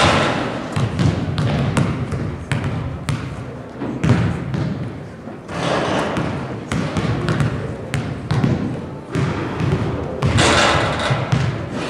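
Basketball bouncing on a hardwood gym floor between free-throw attempts, a few thumps at uneven spacing, with voices murmuring in the echoing gym.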